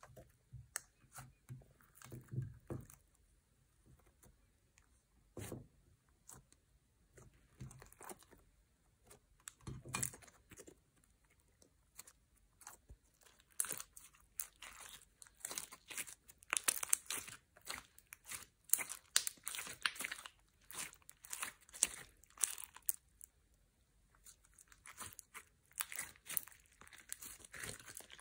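Hands pressing, stretching and squeezing glossy slime studded with small beads, giving crackling, clicking pops. A few soft low thumps come in the first ten seconds, and the crackles come thick and fast in the second half.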